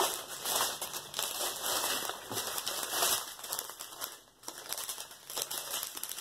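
Small clear plastic packets of diamond painting drills crinkling as they are picked up and handled, in irregular bursts of rustling. The crinkling pauses briefly a little after four seconds in, then goes on more softly.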